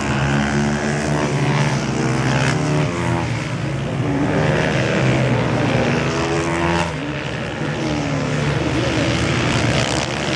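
Several supermotard racing motorcycles running through a corner, their engine notes overlapping and rising and falling in pitch as they brake, shift and accelerate away.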